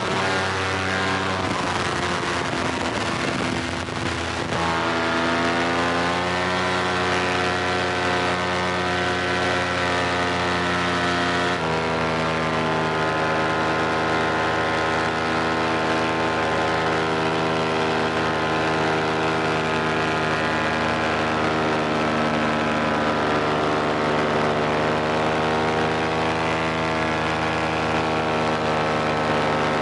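Vittorazi Moster 185 paramotor engine, a single-cylinder two-stroke, running steadily under power. It is rough and noisy for the first few seconds, then its pitch steps up about four seconds in and shifts again near the middle.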